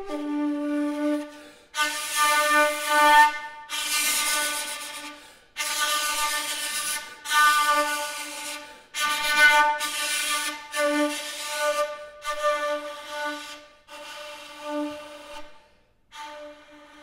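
Shakuhachi (bamboo end-blown flute) played solo: a run of long, breathy notes on the same low pitch, each swelling and fading, with short breaks for breath every second or two.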